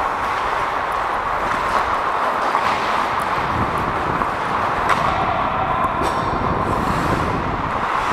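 Steady rushing noise of ice skates gliding and scraping on a rink, with air rushing over a helmet-mounted camera's microphone as the wearer skates. A couple of faint knocks sound about two and five seconds in.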